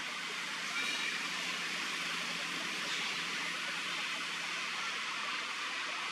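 Steady, even hiss of outdoor background noise, with a brief faint high-pitched sound just under a second in.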